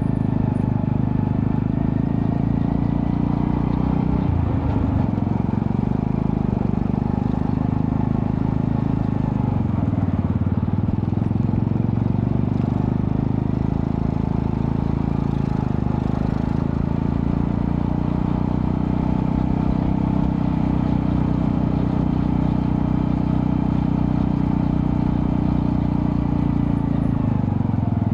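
Honda Astrea Prima-based 110cc streetcub motorcycle's engine running through a custom underbelly exhaust with resonator. It holds a steady note, which dips briefly about four seconds in and again around ten seconds in.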